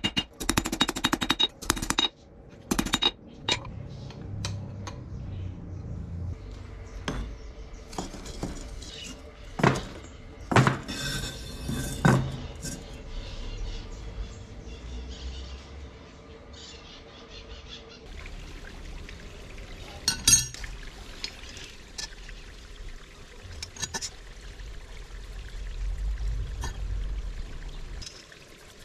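Hammer blows on hot leaf-spring steel on an anvil, fast and even for the first couple of seconds. After that come scattered single metallic clanks and knocks, over a steady low rushing noise.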